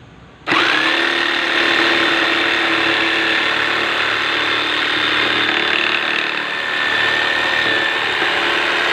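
Hilda 910-watt electric jigsaw starting about half a second in, spinning up quickly, then running steadily with a high motor whine while cutting 3/4-inch plywood.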